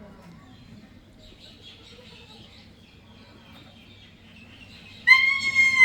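A kea gives one loud, high held call near the end, lasting under a second, after a stretch of faint chirping.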